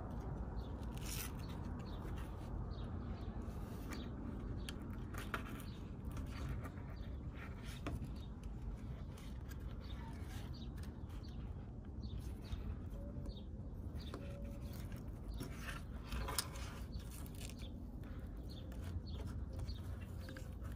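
Faint clicks and rubbing from hands working the plastic and metal parts of a removed fuel pump assembly while pulling off its intake filter, over a steady low background rumble.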